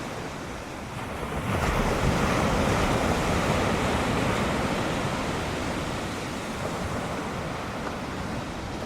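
Ocean surf breaking, with wind buffeting the microphone. The wash swells about a second and a half in and then slowly eases off.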